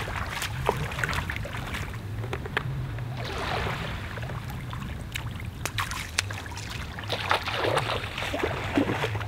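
Small waves lapping and washing onto a sandy shore in shallow water, swelling twice a few seconds apart, over a low steady rumble.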